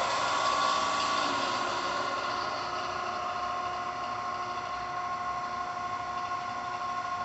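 Wells Index Model 847 vertical milling machine's 2 HP spindle motor and drive running steadily, with a constant whine made of several steady tones.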